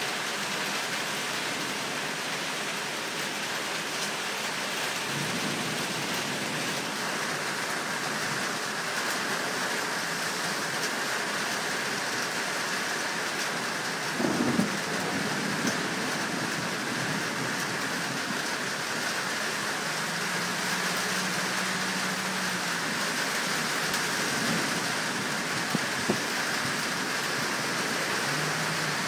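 Rain falling steadily during a thunderstorm, an even hiss. There is a brief louder thump about halfway through and a couple of sharp ticks later.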